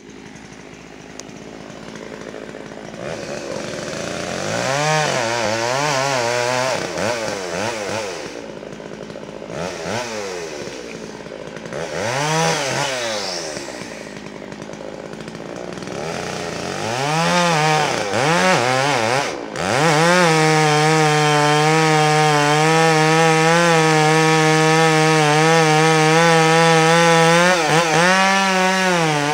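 Chainsaw revved up and down in several rises and falls, then held at steady full throttle for the last third while cutting into the trunk of a large tree being felled.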